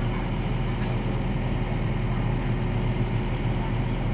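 Railway excavator's diesel engine running steadily, a constant low hum with an even noisy wash over it.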